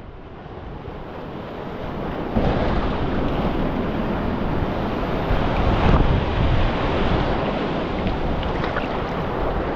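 Sea swell surging and breaking white over a low rocky reef, mixed with wind rushing on the microphone. The rush builds over the first couple of seconds and swells loudest about six seconds in.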